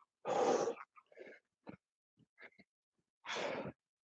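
A man breathing out hard with exertion during a resistance-band shoulder exercise: two forceful exhales about three seconds apart.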